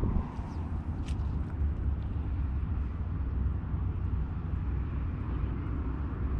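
Steady low rumble of wind buffeting the microphone, with one faint sharp click about a second in.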